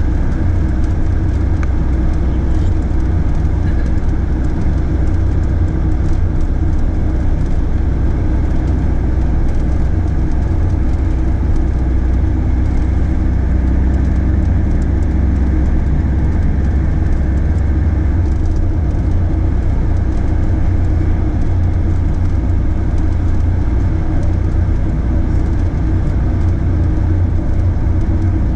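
Steady low rumble of a vehicle under way, heard from inside: engine and road noise that stays even throughout.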